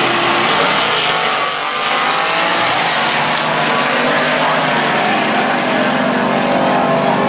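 A first-generation Chevrolet Camaro and a Tri-Five Chevrolet launching side by side from a drag strip start line and accelerating hard at full throttle, their engines revving up in pitch as they pull away.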